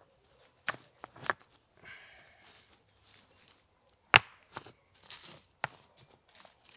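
Knife work on dry resinous wood: a few sharp, irregularly spaced knocks with short scraping shaves between them, the loudest knock about four seconds in.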